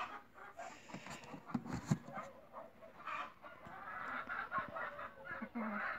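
Chickens clucking faintly, with a few soft knocks.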